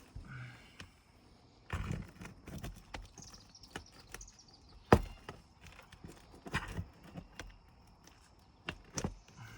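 Irregular knocks, taps and scrapes of hand tools and handling on an asphalt shingle roof during shingle removal, with one sharp, loud knock about five seconds in.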